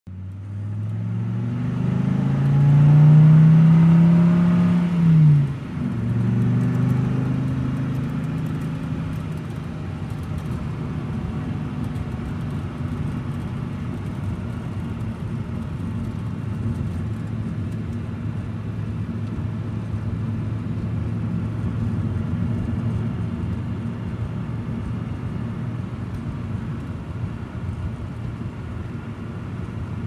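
A car driving slowly. The engine's pitch climbs over the first few seconds, dips sharply about five seconds in, then settles into a steady low engine hum with road noise.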